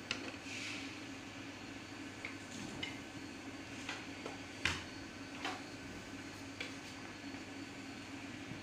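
Scattered light clicks and taps of hands handling the plastic housing, cover and circuit board inside an opened Vivicine M20 projector, with one sharper knock about four and a half seconds in, over a steady low hum.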